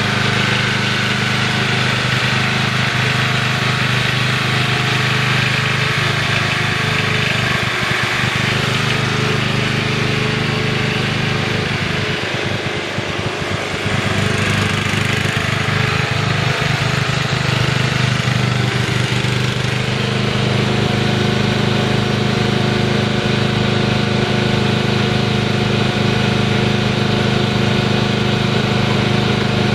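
Riding lawn mower's engine running steadily as the mower drives across the lawn, briefly quieter about halfway through.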